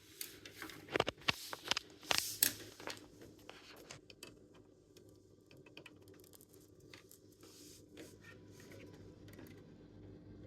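Wire coat hanger clicking and scraping inside a Samsung washing machine's drain pump opening, probing for debris caught in the pump impeller that is blamed for the 5C drain error. Several sharp clicks come in the first few seconds, then only faint scratching.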